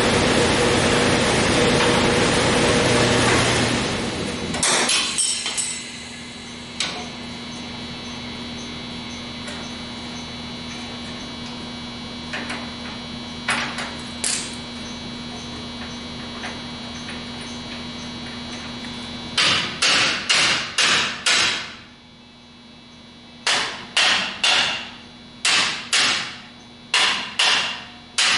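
Hammer blows on the front brake and spindle parts of a 1956 Ford F100 while the old drum brakes come off: a few scattered strikes, then a quick run of about six blows around twenty seconds in and about nine more near the end. A loud steady rushing noise fills the first four seconds or so and cuts off suddenly.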